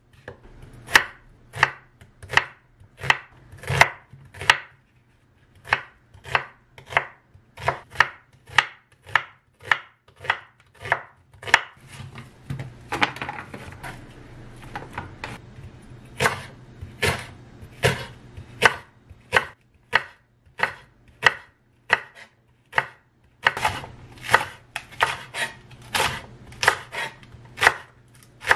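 Kitchen knife cutting onion and green onion on a wooden cutting board, each stroke ending in a sharp knock of the blade on the board. The knocks come about twice a second, quickening to a faster run near the end.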